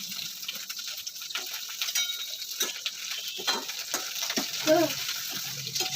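Cut okra frying in hot oil in a pan: a steady sizzle, with the clicks and scrapes of a spatula stirring it.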